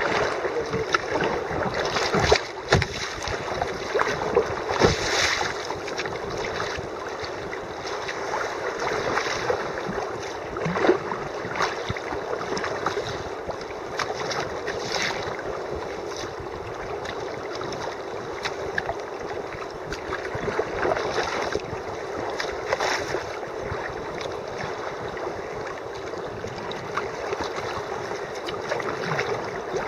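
Choppy sea water sloshing and slapping against a sea kayak's hull, with irregular louder splashes as waves hit the bow, picked up by a camera on the kayak's front deck.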